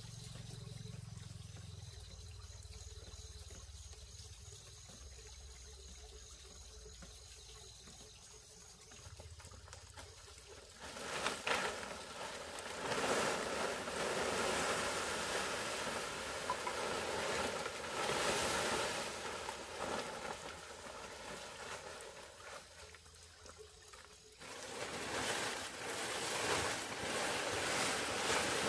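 Water trickling and splashing, faint for the first several seconds, then louder and busier from about eleven seconds in, with a short lull near the end.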